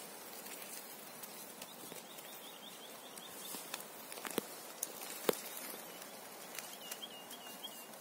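Faint songbird song: a run of quick repeated chirps, then a short warbling phrase near the end. Two sharp clicks about four and five seconds in.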